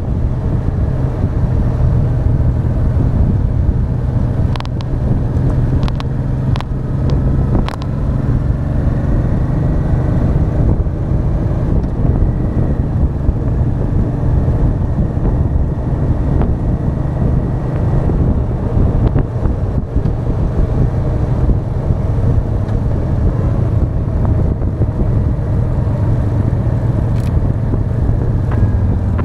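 Honda Deauville 650's V-twin engine running at road speed, with wind rushing over the front-mounted action camera's microphone. A few sharp clicks come through in the first third and once near the end.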